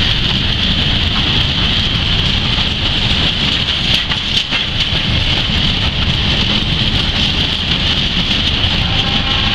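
Freight wagons rolling past close by: a steady rumble of wheels on rail with a continuous high hiss over it.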